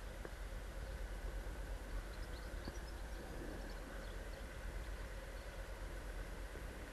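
Steady riding noise from a Superpedestrian rental e-scooter in motion: low wind rumble on the microphone and road noise, with a few faint steady high tones.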